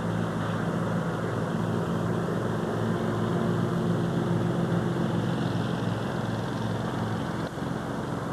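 A steady low mechanical hum with a few even tones, as of a motor running without change.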